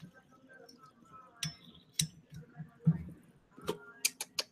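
Water bubbling in a glass dab rig as it is drawn on: a low, quick bubbling pulse three or four times a second. There are sharp glass clinks about one and a half and two seconds in, and a quick run of four near the end.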